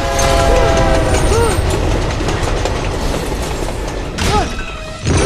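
Action-film sound mix: a train horn blares for about the first second and a half over a heavy low rumble, followed by short rising-and-falling whirs and impacts.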